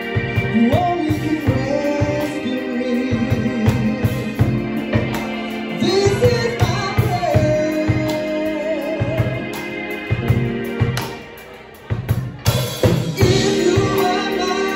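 Live soul band: a woman sings long, held notes with vibrato over a steady drum kit beat, electric bass and keyboard. About eleven seconds in the band drops back briefly, then comes in again at full level.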